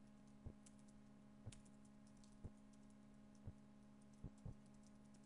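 Faint typing on a computer keyboard: quick light keystrokes with a heavier key tap about once a second, over a low steady hum.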